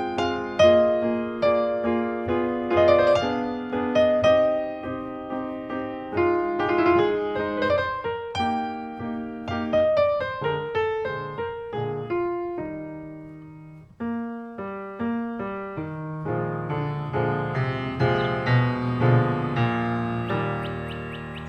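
Background piano music: separate struck notes playing a slow melody over chords. The sound dies away about thirteen seconds in, and a new phrase begins a moment later.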